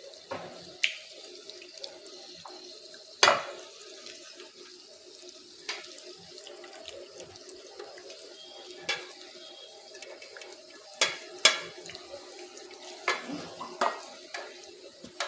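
Hands rubbing thick tandoori marinade paste over a raw whole chicken on a steel tray: soft wet squelching with a few sharp taps and clicks, the loudest about three seconds in and again around eleven seconds, over a faint steady hum.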